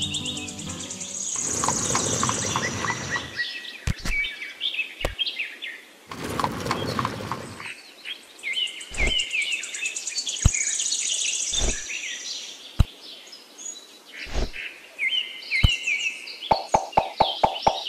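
Birds chirping and trilling throughout, over sharp clicks of small pebbles being set down one at a time on sand, roughly one every second or so, with two longer rustles of the pebbles being handled. Near the end a quick run of short pitched ticks starts.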